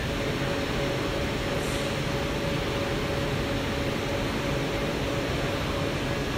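Steady whirring hiss of a 1325 flatbed laser marking machine's fans running while it works on fabric, with a constant hum tone underneath.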